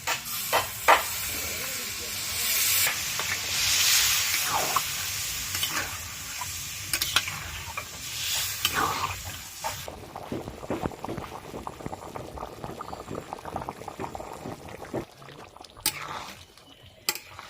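Pork curry sizzling in a pan while it is stirred, with scattered clicks and scrapes of the stirring spoon. About ten seconds in the loud sizzle gives way suddenly to a quieter crackling bubble, which thins out near the end to a few sharp knocks.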